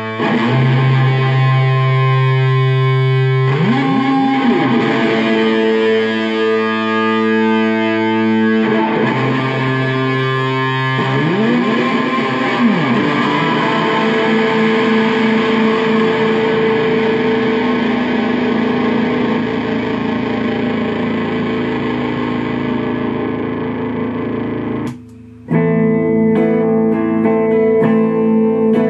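Electric bass played through distortion and effects pedals: held, fuzzy notes with several slides up and down the neck. Near the end the sound cuts out for about half a second, then comes back with shorter, choppier notes.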